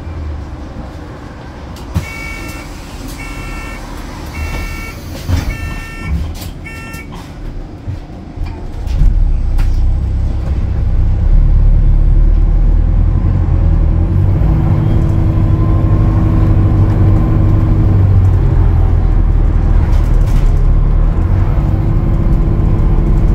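Alexander Dennis Enviro400H hybrid double-decker bus: a series of short electronic beeps with a few clicks, then about nine seconds in its engine comes in loudly and keeps running steadily.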